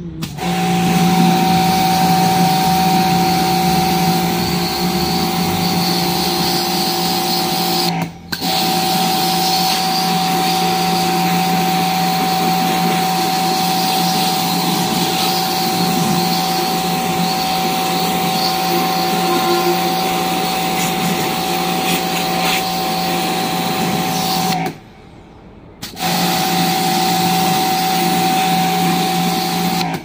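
Pressure washer running, its pump motor humming steadily under the hiss of the water jet spraying onto a window air conditioner's coil. The machine cuts out for a moment about eight seconds in, and again for about a second near the end, then starts again.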